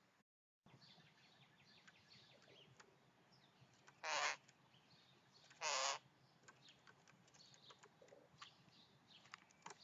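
A crow cawing twice, two harsh calls about a second and a half apart, with faint small-bird chirps around them.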